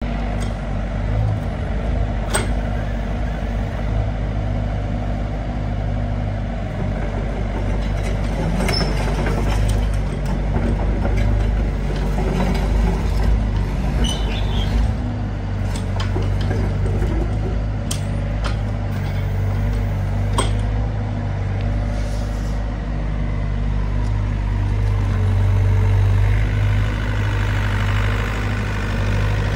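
Doosan DX80R excavator's diesel engine running steadily as the machine works, with occasional sharp clanks and knocks. Near the end the engine gets louder and a high whine joins in.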